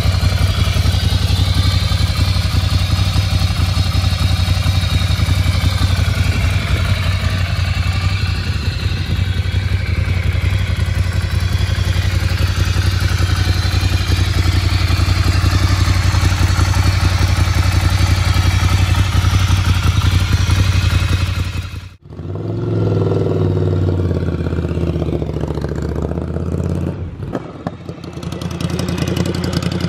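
Ducati Scrambler Cafe Racer's 803 cc air-cooled L-twin idling steadily with a fast, even pulse. About three-quarters of the way through it cuts off suddenly to another Scrambler Cafe Racer's engine idling, its level dipping and then rising near the end.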